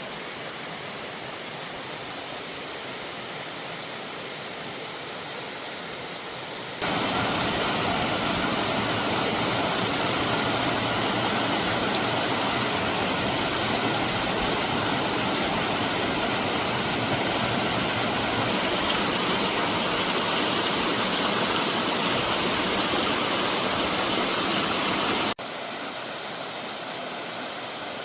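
Steady rushing of a mountain valley stream. It jumps louder about seven seconds in and drops back to the quieter level near the end, at cuts between separate recordings.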